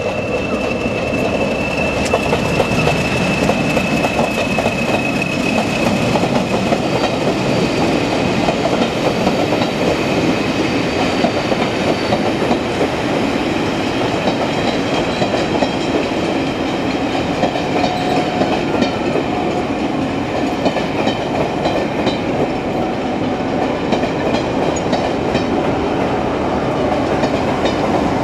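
Class 40 diesel locomotive with its English Electric engine running as it passes, with a high steady whistle that fades over the first few seconds. Then its train of passenger coaches rolls by with continuous wheel clatter over the rail joints and points.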